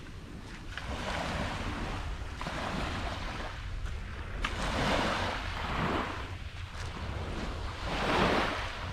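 Small waves washing up onto a shelly beach, swelling and fading every second or two, the loudest wash about 8 seconds in, over a steady low rumble of wind on the microphone.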